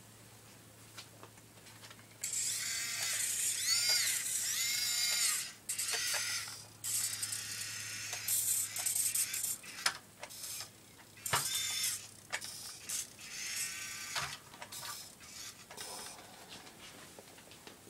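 Radio-controlled model tractor's small electric drive motor and gears whining in spells, the pitch rising and falling as it speeds up, slows and stops, starting about two seconds in and dying away near the end.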